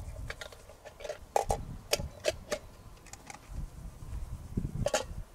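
Camping gear being handled, a small metal pot among it: a run of irregular sharp clicks and clinks, with a close pair just before the end.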